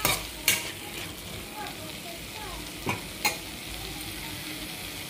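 Tomatoes, onions and green chillies sizzling in oil in a nonstick pan on high flame, about half cooked, with a steel spoon stirring through them. A few sharp clicks of the spoon against the pan, two near the start and two around three seconds in.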